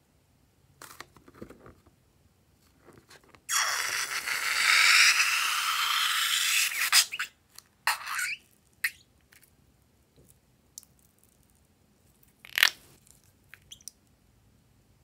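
A rubber balloon full of runny yellow slime squeezed by hand, with a loud spluttering hiss for about three seconds as air and liquid squirt out of its opening. It is followed by several short spurts of the same sound.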